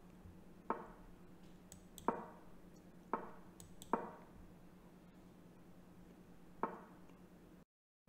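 Chess.com's wooden piece-move sound effect: five short knocks with a brief ring, spaced unevenly as blitz moves are played, with fainter mouse clicks between them. A steady low hum runs underneath, and the sound cuts out completely for a moment near the end.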